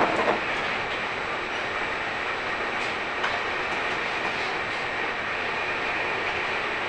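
A passenger train running at speed, heard from inside a Trenitalia Vivalto double-deck coach: a steady rolling and rushing noise of wheels on rails and air past the car. There is a brief louder burst at the very start and a faint tick about three seconds in.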